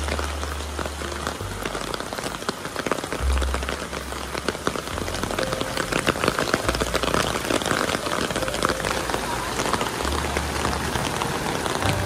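Heavy rain falling, with dense drops pattering on the umbrella held over the microphone. A low rumble comes and goes underneath.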